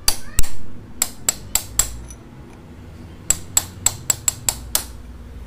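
Hammer striking a steel punch set against a motorcycle steering stem's upper lock nut, driving the nut counterclockwise to loosen it. Sharp metallic strikes come in two runs: about six in the first two seconds, then after a pause seven more in quicker succession.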